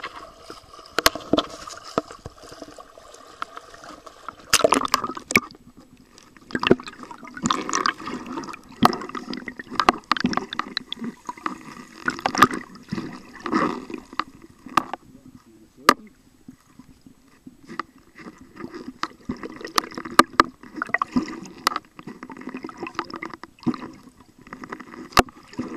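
Water gurgling and sloshing in uneven surges around a submerged camera, heard from underwater, with many irregular sharp clicks and knocks.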